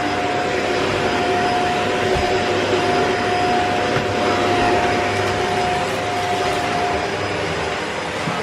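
Shark Anti Hair Wrap Lift-Away vacuum cleaner running steadily with a steady motor whine, which drops out near the end. The motor is described as quiet.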